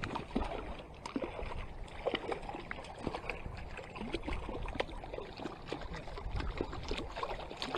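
Water splashing and trickling close by, with many small irregular splashes and clicks.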